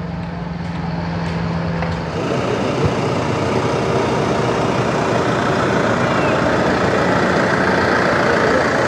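An engine running, a steady hum that gives way about two seconds in to a rougher, fuller engine noise that slowly grows louder.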